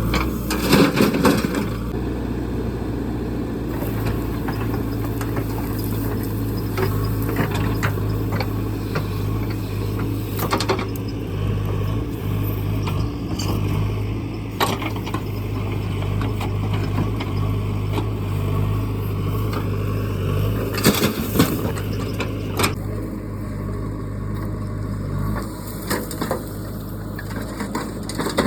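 Diesel engine of heavy earthmoving machinery running steadily, with a few sharp clanks and knocks, about a second in, near the middle and again later.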